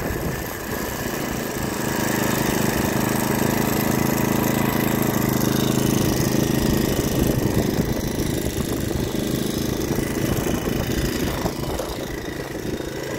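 BikeBerry 49cc four-stroke motorized bicycle engine running with a steady note, loudest a couple of seconds in, then less even and a little quieter over the last few seconds.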